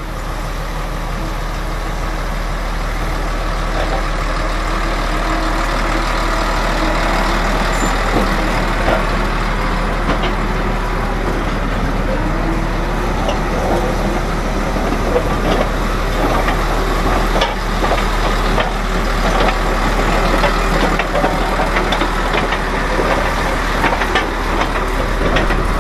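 Caterpillar D7F crawler dozer's diesel engine running steadily and loudly, with a deep rumble and scattered metallic knocks over it.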